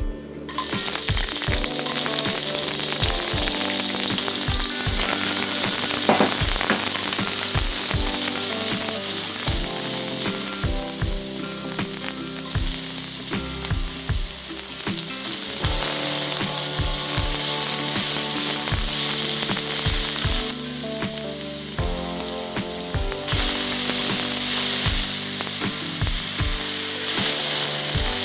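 Vegetables sizzling in hot oil in a nonstick stir-fry pan on high heat, stirred as they fry. The sizzle starts abruptly about half a second in, when the food hits the oil, and steps up again near the end as more vegetables go in.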